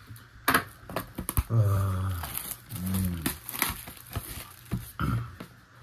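Plastic shrink wrap crinkling and tearing as a trading-card box is unwrapped by hand, in quick irregular crackles. A low voiced murmur or grunt comes in twice, about two and three seconds in.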